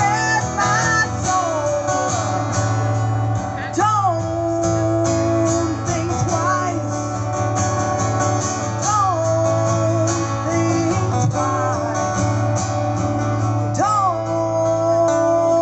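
Live acoustic guitar strumming behind a woman's singing voice holding long notes, each opening with a quick swoop up and back down in pitch.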